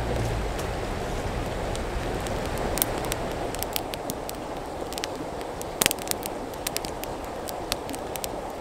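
Wood campfire crackling, with scattered sharp pops and snaps and a brief cluster of louder snaps about six seconds in, over the steady rush of a mountain river.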